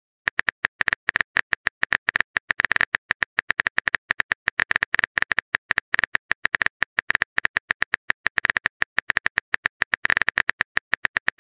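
Smartphone keyboard typing sound effect: a rapid, slightly uneven run of short key clicks, about nine or ten a second, as a text message is typed out letter by letter.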